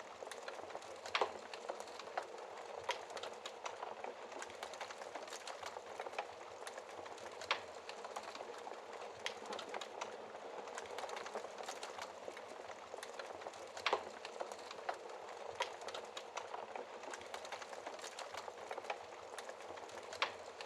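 Wood fire crackling in a fireplace: a steady hiss of burning with dense small crackles and a few louder pops spaced several seconds apart.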